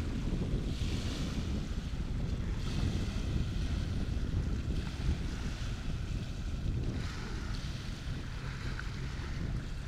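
Wind buffeting the microphone with a steady low rumble, over a hiss of waves that swells and fades every couple of seconds.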